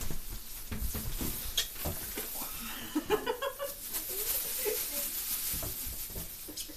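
Scattered light clicks and knocks of tableware at a dining table, with faint voices in the background.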